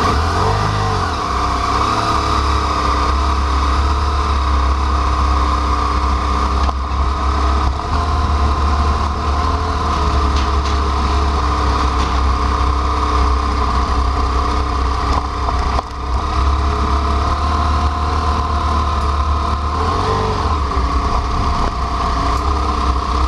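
BMW F800ST parallel-twin motorcycle engine running under way, with short rises and falls in pitch about a second in and again near the end.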